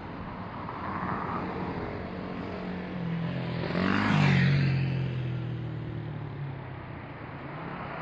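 Road traffic passing on a city street. One vehicle goes by close about four seconds in, its engine hum rising and then dropping in pitch as it passes.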